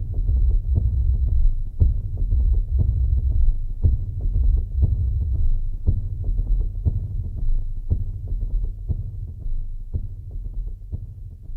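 A low steady hum with a regular knock about twice a second, growing fainter near the end.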